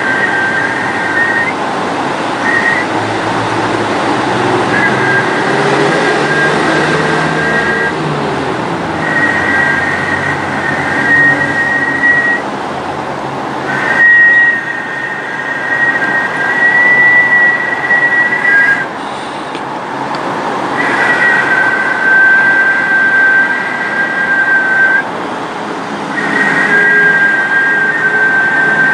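Two steady high-pitched tones sounding together, used as a sound-energy treatment. They cut out and come back every few seconds, over a constant hiss.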